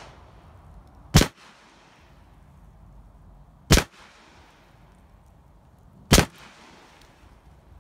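Three AR-15 rifle shots firing cast lead .223 bullets, evenly paced about two and a half seconds apart. Each sharp report trails off in a short echo.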